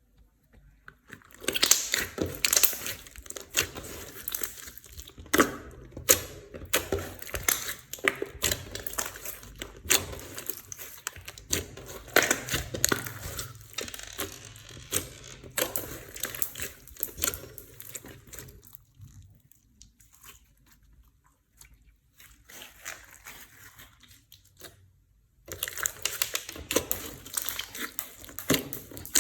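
Slime being kneaded and stretched by hand, giving dense crackling and popping. It goes quieter for several seconds, then starts up loudly again near the end.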